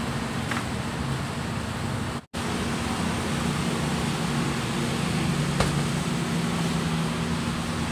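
Steady mechanical hum and hiss of shop background noise, cutting out for an instant about two seconds in, with one faint click past the middle.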